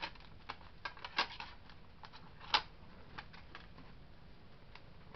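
Small plastic clicks and taps as fingers handle a Blu-ray disc in its clear plastic case tray. The two loudest clicks come about a second in and about two and a half seconds in, and the clicks thin out in the second half.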